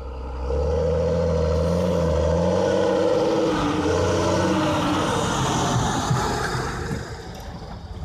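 John Deere tractor's diesel engine running under load as it drives past pulling a loaded manure spreader, swelling about half a second in and fading after about seven seconds as it passes.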